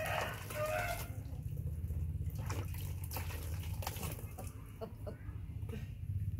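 A rooster's crow trails off about a second in, followed by water splashing and dripping into a basin as hands are rinsed over it, over a steady low rumble.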